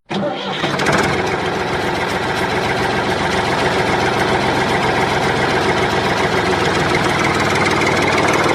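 A small motor running steadily with a fast, dense buzz, as from a miniature DIY tractor or machine.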